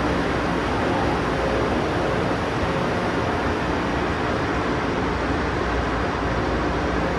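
Steady hum and rushing noise of a railway station platform with high-speed trains standing at it, like running ventilation and train air-conditioning, even throughout with no distinct events.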